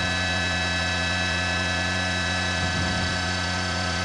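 Helicopter running steadily, as heard from aboard: a constant engine and rotor noise with several steady high whining tones over it.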